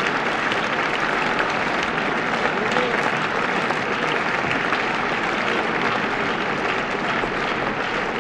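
Large theatre audience applauding, a dense, steady clapping that keeps an even level.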